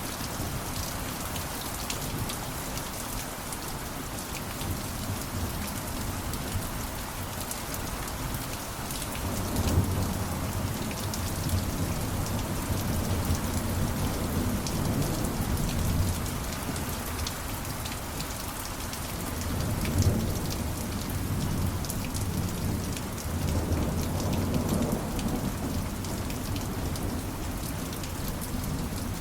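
Steady heavy rain pattering on a surface, with low rolls of thunder rumbling in several times, about a third of the way in, around two-thirds and again near the end.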